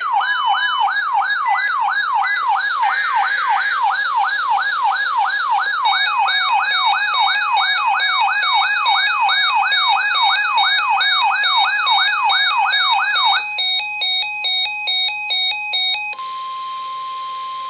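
Electronic wailing siren tone sweeping up and down about two and a half times a second, with layered electronic beeping tones joining about six seconds in. It gives way to a few seconds of stepped alternating beeps, then near the end to a single steady tone, the NOAA Weather Radio 1050 Hz warning alert tone.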